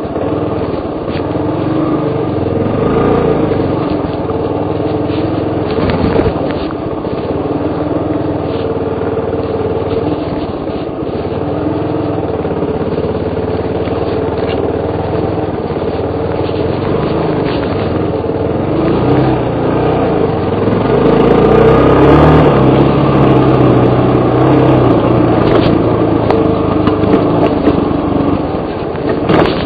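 Suzuki DR 350's single-cylinder four-stroke engine running under way, its pitch rising and falling with the throttle and loudest about twenty seconds in, with a few brief knocks.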